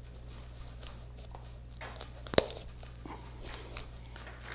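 Hunting knife cutting off a deer's tail at the carcass: faint scraping and handling noises with a sharp click about two and a half seconds in, over a steady low hum.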